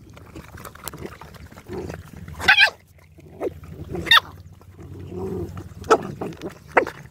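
Dogs eating together from a shared bowl, snuffling and lapping, with two short, high cries from the pack about two and a half and four seconds in.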